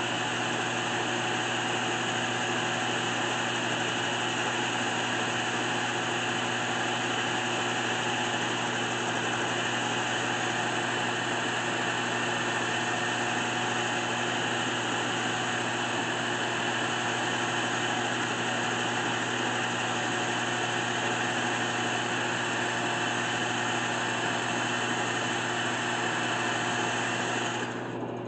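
Power sanding: a cordless drill spins a foam-backed sanding disc against a spalted maple dish turning on a 1981 Delta 12-inch lathe, a steady whirr and hiss over the lathe motor's steady hum. Near the end the drill comes off the wood and the sound drops, leaving the lathe running.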